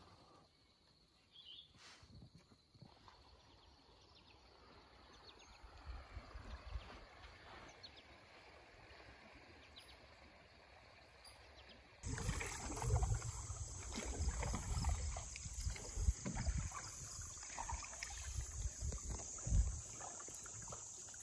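A canoe being paddled on a river: uneven low knocks and rumbles over a steady hiss, starting abruptly about twelve seconds in. Before that, only faint outdoor quiet with a few small ticks.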